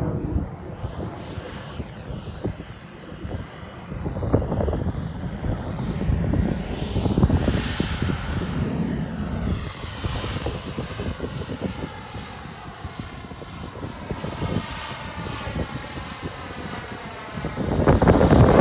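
Turbine engine of an RC F-16 model jet in flight: a high-pitched whine that rises and falls in pitch over a rumbling jet noise, growing louder near the end as the jet passes close.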